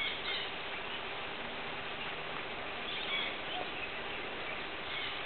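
Steady outdoor background hiss with a few short, faint high chirps, at the start, around the middle and near the end.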